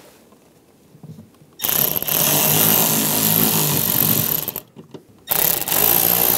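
Electric drill spinning in two runs of about three seconds and two seconds, with a short pause between, driving in the door panel's mounting screws.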